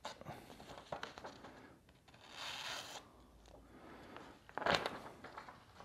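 Freshly sharpened chisel slicing through paper, with paper rustling: a longer papery hiss about two and a half seconds in and a louder, sharper rasp about three quarters of the way through.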